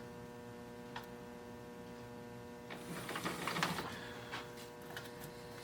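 Metal lathe running with a steady electric hum, while small clicks and a brief light scraping rattle about three seconds in come from the parting-off tool and handwheel being set against the work.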